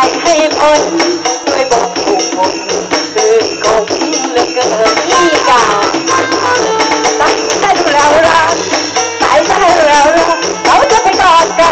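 Thai luk thung Isan band music played loud through a PA, with a pitch-bending melody line over a steady beat and shaken percussion.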